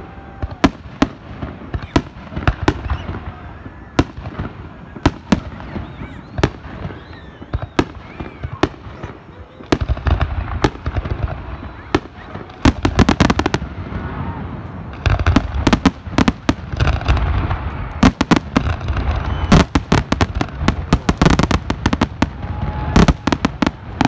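Aerial fireworks shells bursting in a rapid series of sharp bangs, growing denser and louder about ten seconds in and again from about fifteen seconds.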